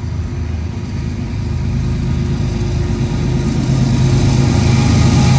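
Diesel engine drone of an approaching Union Pacific GE locomotive, a GE ES44AC-H, growing steadily louder.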